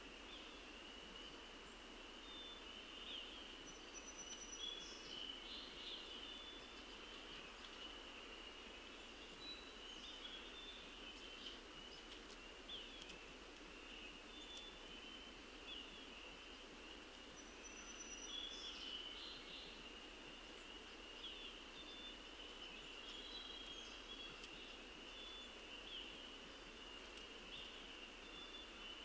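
Faint, steady chorus of spring peepers: many short, high, rising peeps overlapping into a continuous band, with scattered brief songbird whistles above it.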